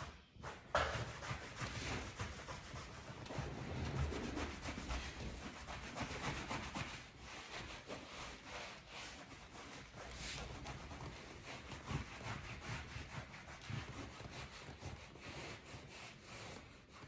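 A cloth rubbing over a leather couch in irregular back-and-forth strokes as the upholstery is wiped and buffed to a shine.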